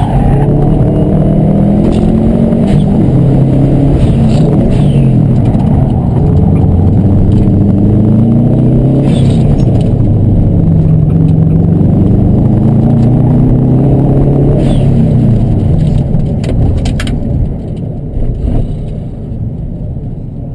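Subaru Impreza WRX's turbocharged flat-four heard from inside the cabin while driven hard, its note rising and falling again and again with throttle and braking. It drops away near the end as the car eases off.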